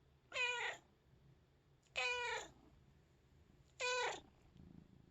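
Domestic cat meowing three times, roughly a second and a half apart. Each meow is short and drops in pitch at its end.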